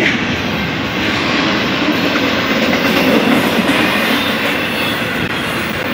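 Double-stack intermodal container freight train rolling past, its wheels on the rails making a steady rumbling, rattling noise.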